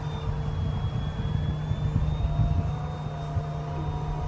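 Foam board RC model airplane's motor and propeller running steadily in flight, a thin whine that shifts slightly in pitch about halfway through, over a low rumble.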